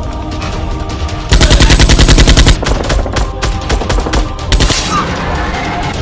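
A rapid burst of automatic gunfire, about ten shots a second, starts about a second in. It is followed by scattered single shots, over background action music.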